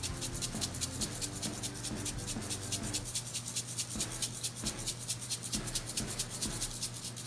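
Sprinkles rattling in a small plastic shaker bottle, shaken rapidly and evenly at about eight shakes a second over a bowl of frosting. The shaking stops near the end.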